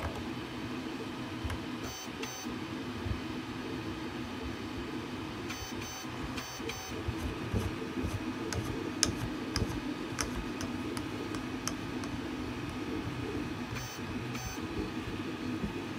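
Scattered light clicks and scrapes of 3D-printed plastic parts being handled, as a muzzle attachment is twisted on the end of an airsoft carbine's barrel, over a steady low hum.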